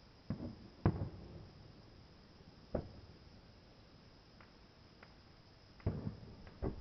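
Aerial fireworks shells bursting a couple of miles away: a series of sharp bangs, each trailing off in a low rumbling echo, the loudest about a second in and a close pair near the end.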